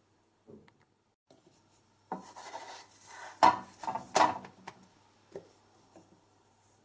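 A flatbread being handled and turned on a hot flat griddle pan: about two seconds of scraping and rubbing, with two sharper knocks near the middle and a few light taps.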